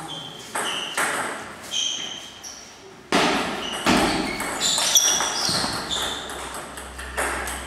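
Table tennis ball knocking on paddles and table in a doubles match. There are a few separate knocks first, then a quicker run of sharp clicks with short high pings in a rally from about three seconds in, ringing in a hard-walled hall.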